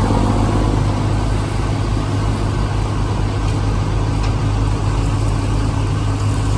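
Combine harvester running steadily under harvest load, a constant low engine and machinery drone.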